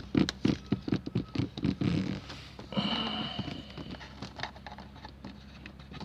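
Rapid small clicks and taps of a dash cam power cable being pushed and tucked into a car's plastic interior trim, followed about three seconds in by a brief scraping rustle with a thin squeak, then a few faint clicks.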